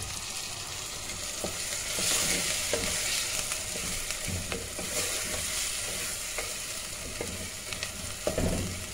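Chopped tomatoes sizzling in hot oil in an earthenware pot while a wooden spoon stirs them, with scattered knocks and scrapes of the spoon against the pot. The tomatoes are being softened in the fried onion and spice base.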